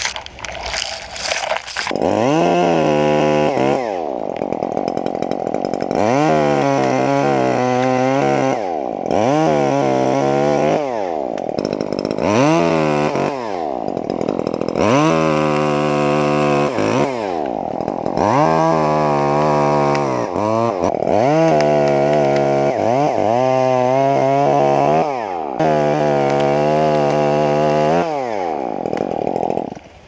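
Chainsaw cutting in a hemlock tree, its engine revving up to full speed and dropping back about eight times. A short burst of crackling clicks comes before the first cut.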